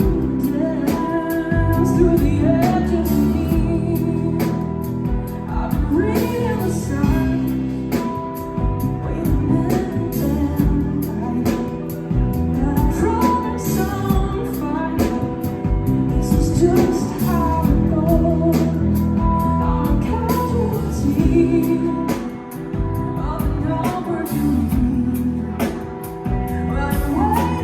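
A song performed by a singer with band accompaniment: a sung melody over a steady beat.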